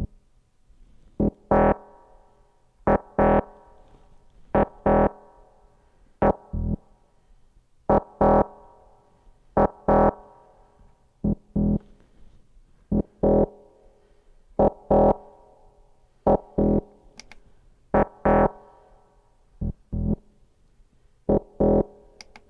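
Soloed FM synth patch playing a sequence of short, plucky notes in groups of one to three, each dying away quickly through a resonant filter while the filter envelope is being adjusted; some notes come out brighter than others.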